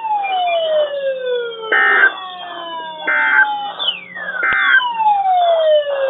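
EAS end-of-message data bursts on NOAA Weather Radio: three short buzzing bursts about a second apart, marking the end of the severe thunderstorm warning broadcast. Behind them a weather radio's alarm sounds repeated falling, siren-like sweeps.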